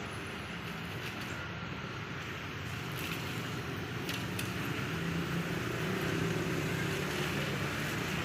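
Steady vehicle engine noise that slowly grows louder, with a couple of faint clicks about three and four seconds in.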